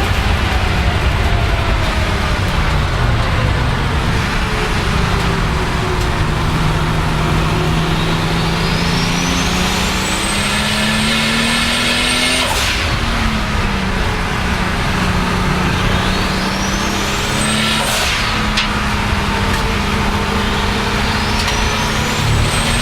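Turbocharged BMW 535i E34's 3.8-litre M30 inline-six at full throttle: the engine note falls at first, then climbs. The turbo whistle rises steeply and holds high, then is cut off by a sharp blow-off valve release, twice. A third whistle climbs near the end.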